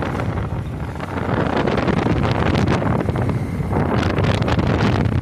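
Wind buffeting the phone's microphone during heavy rain, a loud low rumble that grows stronger about a second in.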